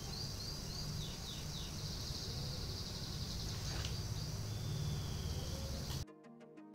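Background ambience: a steady high insect-like hiss over a low rumble, with a few short falling bird chirps about a second in. About six seconds in it cuts abruptly to background music with a ticking beat.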